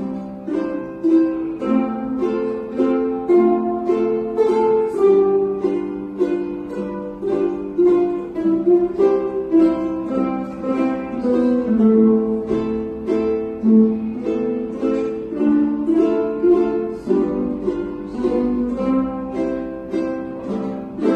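Ukulele playing a song in a steady rhythm, plucked notes and chords following the melody.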